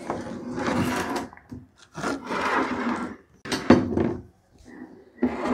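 Hands drumming rapidly on a wooden tabletop in bursts of a second or so, with short pauses between them.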